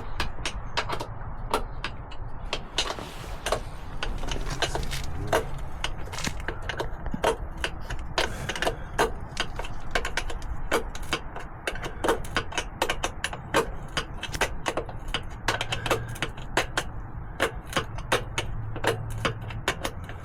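Hand tools working the rear chain adjuster bolts on a Kawasaki KX250 dirt bike: a long run of sharp metallic clicks and knocks at an uneven pace, a few a second, over a low steady hum.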